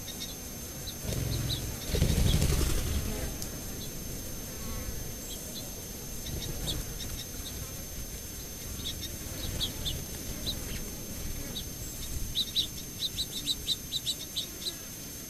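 Small wild birds chirping in short high notes, scattered at first and then in a quick run of chirps near the end. A low rush of noise, the loudest sound, comes and goes about one to three seconds in.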